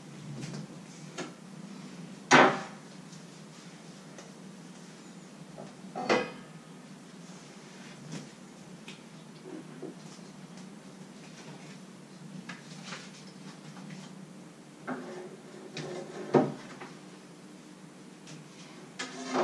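Kitchen clatter of cookware and cupboards being handled: a few separate sharp knocks and clinks, the loudest about two seconds in, with more around six seconds and a cluster near the end. A faint steady low hum runs underneath.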